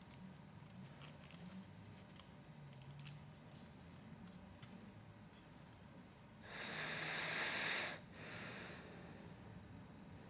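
Small plastic Lego pieces being handled, with scattered faint clicks. About six and a half seconds in there is a loud rustling rummage lasting about a second and a half, then a shorter, quieter one, as of sifting through loose parts.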